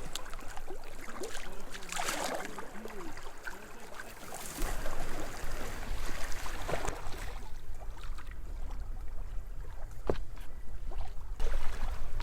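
Kayak paddle strokes swishing and splashing in the river a couple of seconds apart, with water lapping at the hull. A low rumble of wind on the microphone comes in about halfway through.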